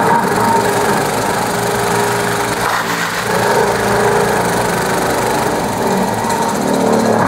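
Engine of road-repair machinery running steadily, with slight shifts in pitch.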